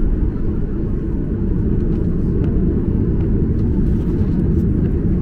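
Cabin noise of a Boeing 737-800 rolling onto the runway with its CFM56 engines at low thrust: a steady deep rumble, with a few light clicks from the cabin now and then.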